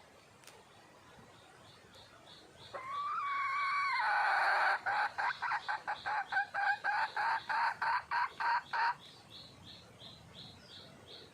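Wild junglefowl hen calling: a drawn-out note, then a quick run of about a dozen short clucks, about three a second. Faint high chirps repeat evenly throughout.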